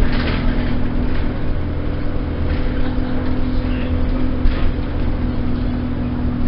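Alexander Dennis Enviro 200 single-deck bus's diesel engine heard from inside the passenger saloon, running with a steady, even hum.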